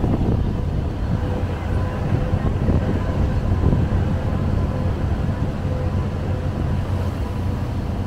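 Pickup truck driving over a cobblestone street, heard from its open cargo bed: a steady, loud low rumble of engine and tyres on the cobbles.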